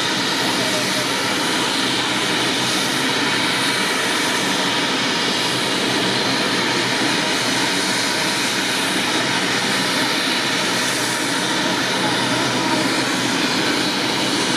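Ornge medical helicopter running steadily, its turbine engines and rotor making a continuous loud noise with a thin steady high whine over it.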